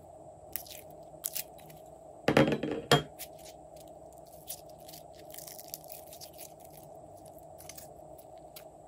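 Glossy slime being handled and stretched by hand: a loud sticky burst lasting under a second about two seconds in, with a few sharp clicks before it and faint scattered pops after, over a faint steady hum.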